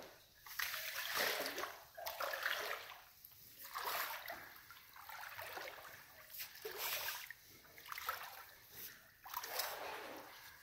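Legs wading through thigh-deep water, sloshing and splashing with each stride, roughly one surge a second.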